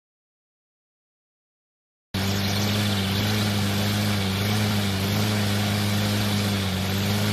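Gasoline push lawn mower engine running steadily at an even pitch, cutting in suddenly about two seconds in after silence.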